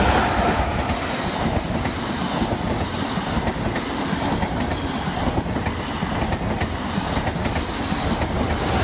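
InterCity 125 high-speed diesel train passing at speed close by. The power car goes by at the start, then the Mark 3 coaches follow with a steady rumble of wheels on rail and a run of clicks over the rail joints.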